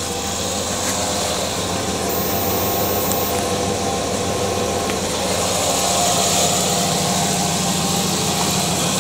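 Dodge 360 V8 engine with two-barrel carburettor idling steadily, getting a little louder from about five seconds in.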